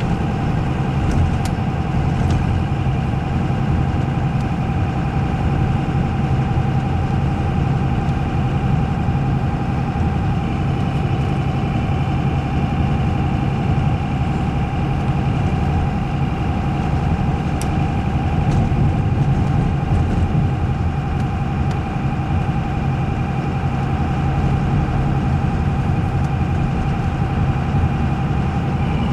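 Steady engine and road noise of a car heard from inside its cabin while driving, with a thin steady whine over a low rumble.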